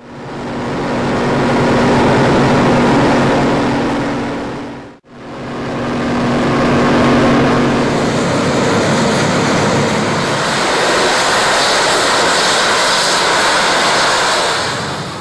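A loud, steady, low droning hum with held tones over a rushing noise, in two separate stretches joined by a short fade-out and fade-in about five seconds in: one of the recordings of the unexplained 'strange sounds' from the sky.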